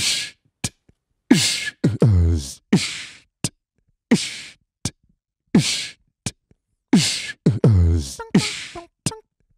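Human beatboxing looped on a loop pedal: a deep kick that drops in pitch, a hissy snare and short clicks between, the pattern repeating about every one and a half seconds. Near the end, short pitched vocal notes come in over the beat.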